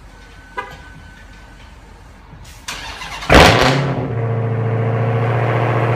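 A car engine is started: a short crank, then it catches about three seconds in with a loud flare. It settles into a steady idle. A faint click comes about half a second in.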